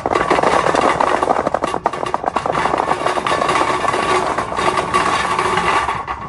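Dozens of golf balls pouring out of a bag into a metal pyramid ball tray, a dense, continuous clatter of balls knocking against each other and the tray. It cuts off just before the end.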